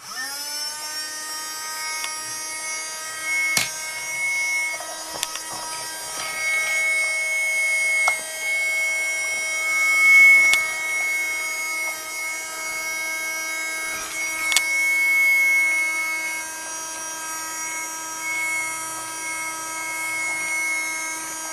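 Battery-powered miniature Henry vacuum cleaner, running on three AA batteries, switched on: its small electric motor spins up with a short rising whine, then runs at a steady whine. A few sharp clicks sound over it.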